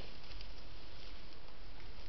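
Steady hiss of a trail camera's microphone, with a few faint rustles and ticks as a wild boar moves through grass.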